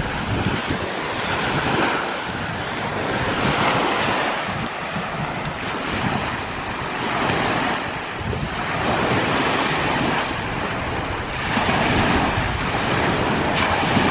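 Lake waves breaking and washing on the shore, swelling and falling every two to three seconds, with wind blowing on the microphone.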